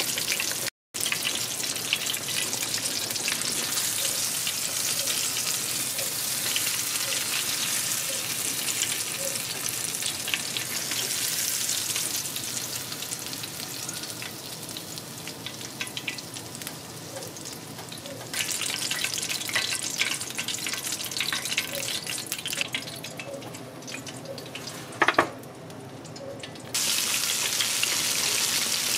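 Flour-dredged fish fillets frying in hot oil on medium-high heat: a steady crackling sizzle that drops quieter and swells again in turns, cutting out for an instant just under a second in. A single short sharp sound about 25 seconds in.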